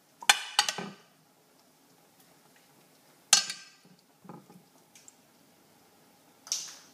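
Sharp clinks and knocks at a stainless steel stockpot as pieces of catfish are put in: three quick ones at the start, a loud ringing one about three seconds in, a few softer ones after it, and another near the end.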